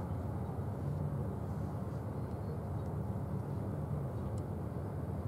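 Low, steady rumble of a large cruise ship's engines and machinery as it sails slowly past, with a faint click about four seconds in.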